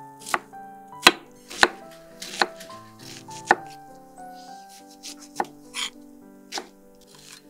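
A chef's knife chopping onion on a wooden cutting board: about eight or nine sharp knocks of the blade striking the board, at an irregular pace of roughly one a second.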